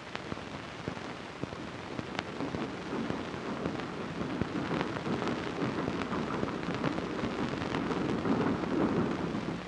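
Crackle and hiss of an old 16mm optical film soundtrack with no programme on it: a steady noisy rumble scattered with clicks and pops.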